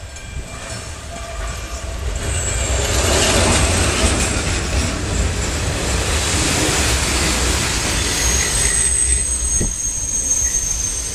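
Electric-hauled passenger train passing at speed: the rumble and wheel noise swell about two seconds in and stay loud as the coaches go by, with a high steady squeal from the wheels in the last few seconds.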